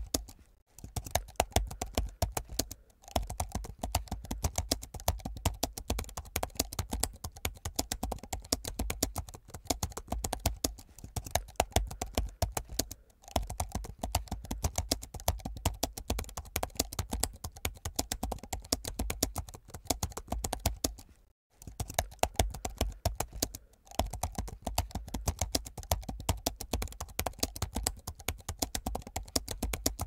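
Hard, fast typing on a laptop keyboard: a dense run of sharp key clicks, broken by brief pauses every few seconds.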